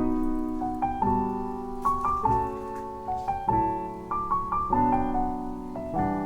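Background music: a gentle piano melody with notes changing about once a second.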